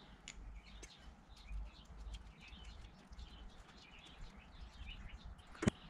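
Faint bird chirps, with a few light clicks as a small T10 Torx driver unscrews the reservoir cap screw on a bicycle brake lever's master cylinder.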